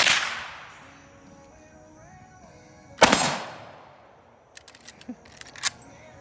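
Two shots from a Marlin 336 lever-action rifle in .30-30, about three seconds apart, each trailing off in a long echo. A few short sharp clicks follow near the end, over background music.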